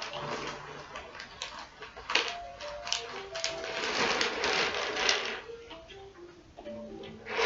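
Plastic Gateron Yellow mechanical keyboard switches clattering and clicking as they are handled, with a dense rattle around the middle, over background music.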